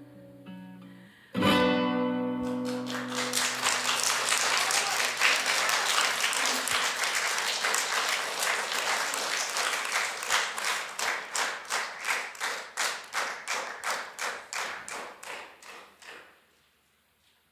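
The accompaniment's closing notes end on a final chord about a second and a half in, and audience applause follows. The applause turns into rhythmic clapping in unison about halfway through, then dies away near the end.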